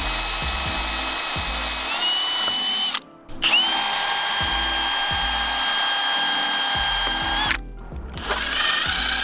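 Cordless drill driving screws to fasten a composite deck rail to its brackets: a steady motor whine in two long runs of about four seconds each, stopping briefly between them, then a short burst near the end.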